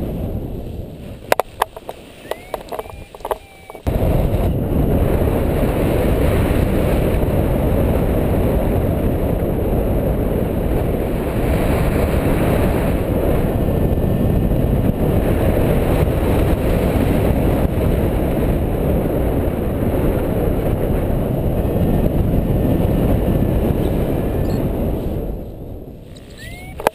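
Wind rushing over the microphone of a paraglider pilot in flight: a loud, steady, low rumble. It starts abruptly about four seconds in, after a quieter stretch with a few sharp clicks, and drops away near the end as the pilot comes down close to the ground.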